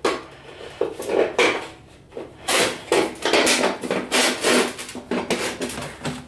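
Thin galvanized sheet-metal duct pipe being handled and pushed together: a string of irregular metallic scrapes and clanks as a crimped end is worked into the next section.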